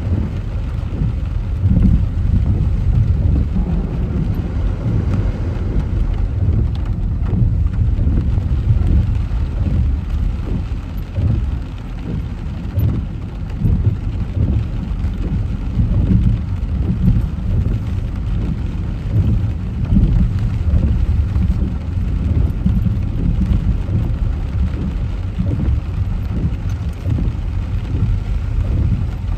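Heavy rain falling on a moving car, with a steady low rumble from the car and the road.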